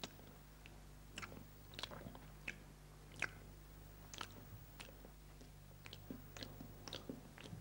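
Faint, irregularly spaced clicks and crackles, about a dozen of them, over a steady low hum.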